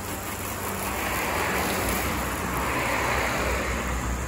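Pressure washer spraying rinse water over a car: a steady hiss that swells about a second in, over a low hum.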